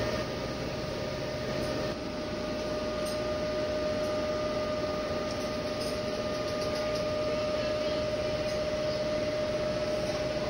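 Siemens Symbia S SPECT gamma camera's gantry drive moving its two detector heads round the ring: a steady mechanical hum with a constant high tone over a hiss. A lower hum drops out about two seconds in.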